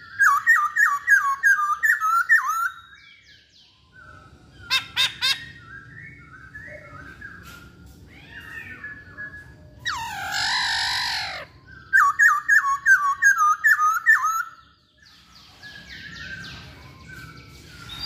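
Black-throated laughingthrush singing: two loud runs of quick, repeated whistled notes, a harsh descending call about ten seconds in, and softer whistles in between, with a few sharp clicks about five seconds in.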